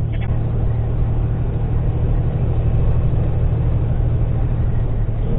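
Semi truck's engine and road noise heard inside the cab, a steady low drone while cruising at about 70 mph.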